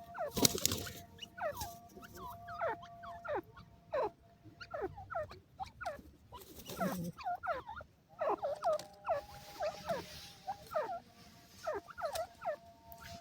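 Desi teetar (grey francolin) calling in a quick series of short, sharply falling chirps, a few a second, with a couple of louder knocks, the first about half a second in.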